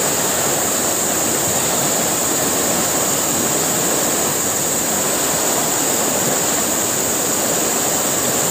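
Fast-flowing river water rushing steadily over a shallow, rippled stretch.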